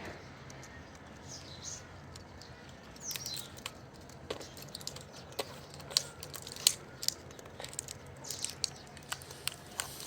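Parrots giving short high chirps now and then, among scattered sharp clicks and cracks.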